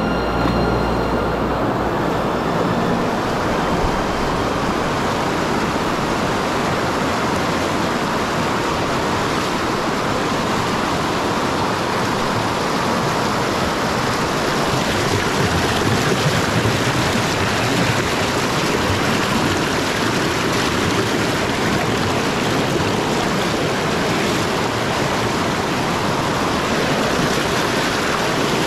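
Loud, steady rush of river rapids: shallow water pouring fast over rock ledges, close to the water.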